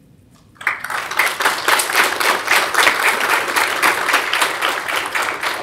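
Audience applauding: many hands clapping, starting suddenly about half a second in and going on steadily.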